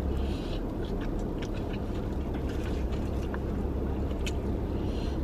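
Eating sounds: a plastic fork scraping and tapping a takeout bowl, with soft chewing, over a steady low hum inside a car's cabin.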